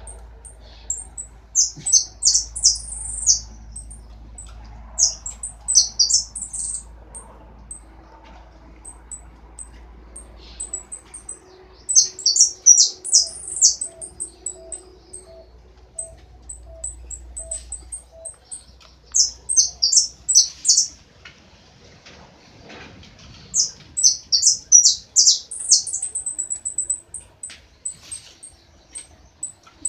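Caged songbird singing in repeated bursts of rapid, high, falling notes about two seconds long, with single high chips in between.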